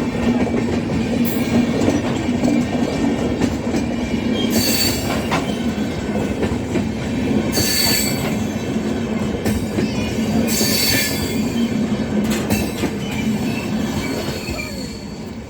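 Railway coaches rolling past with a steady rumble of wheels on track. High-pitched wheel squeal rises in short bursts about every three seconds.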